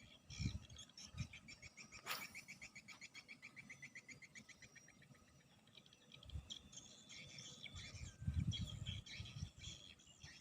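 Faint wildlife calls: a rhythmic high chirping of about six pulses a second starts with a sharp click about two seconds in and fades out a few seconds later, over other scattered high chirps and trills. Low dull thumps come and go, loudest near the end.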